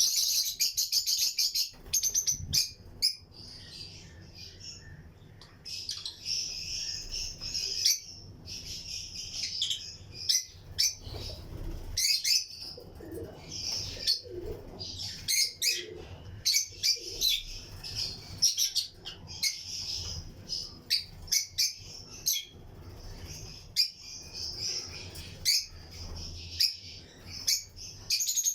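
A colony of lutino lovebirds chirping together: a dense run of rapid high calls near the start, then bursts of short high chirps throughout, with scattered sharp clicks.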